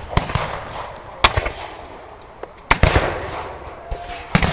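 Scattered black-powder musket shots: several sharp bangs spaced a second or more apart, with a close pair near the end, each trailing off in an echo.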